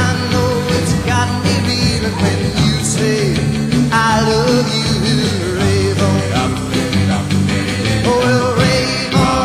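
Rock and roll song playing as background music.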